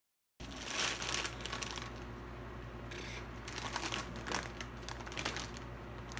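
Foil-lined potato chip bag crinkling in a run of sharp, irregular crackles as it is handled and opened. It starts abruptly about half a second in.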